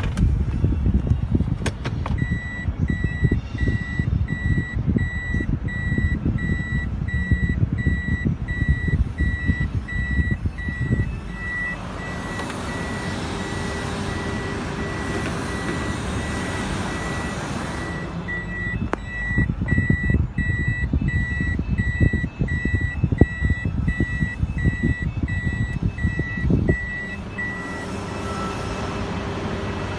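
2016 Toyota Harrier's reverse warning beep sounding in the cabin while the car backs into a bay: a steady, evenly spaced high beep that stops near the end. Under it, uneven low rumbling with a hissing rush in the middle.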